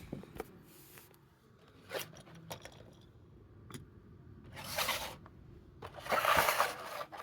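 Toy packaging being handled: a few light clicks, then two scraping, rustling bursts about four and six seconds in, as boxed die-cast cars are moved about.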